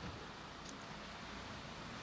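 Steady background hiss and low hum of an outdoor yard, with one faint short high tick under a second in.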